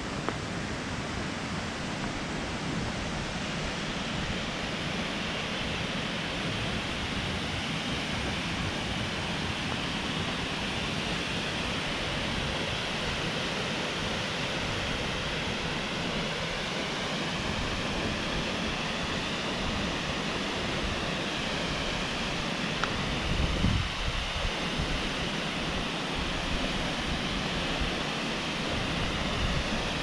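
Steady rush of the Cascade du Rouget waterfall, a mountain waterfall falling in several tiers over rock ledges, growing fuller in the first few seconds. A brief low rumble of wind on the microphone comes a little past three-quarters through.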